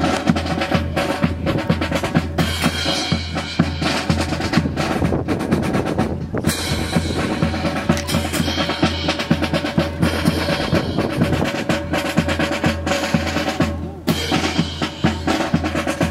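Drum music accompanying a military drill display: snare and bass drum keep a quick, steady beat with rolls, over a steady low tone.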